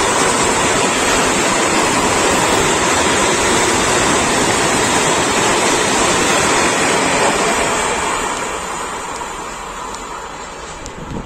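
Freight train wagons rolling past at speed: a loud, steady rumble of wheels on rail. It fades from about eight seconds in as the train moves away.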